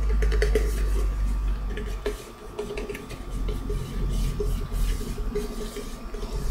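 A cardboard tube with a freshly glued covering being rolled and rubbed between hands: irregular rustling and crinkling with small clicks and low handling bumps.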